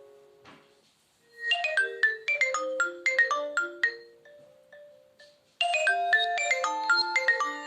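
Nokia Lumia 521 preloaded ringtone: a fast melody of short notes that starts a little over a second in and loops, starting over at about five and a half seconds in.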